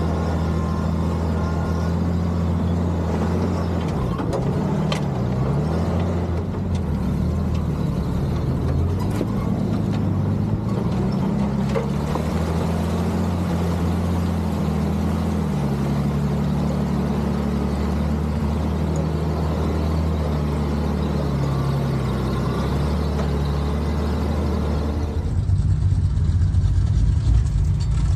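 Vintage Dodge M37 wrecker's flathead inline-six engine running under load as the truck drives off-road, its pitch stepping up and down with throttle and gear changes. Near the end the engine sound gives way to a louder, uneven low rumble of wind on the microphone.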